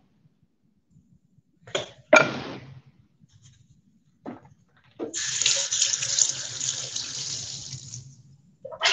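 A few knocks and clunks, then a kitchen sink faucet runs for about three seconds as a wooden cutting board is rinsed under it, and shuts off.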